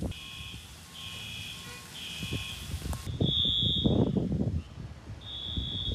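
Electronic building alarm beeping repeatedly with a high, two-toned beep about half a second long roughly once a second. After a cut, a single higher beep sounds about every two seconds. Low rustling noise comes and goes underneath.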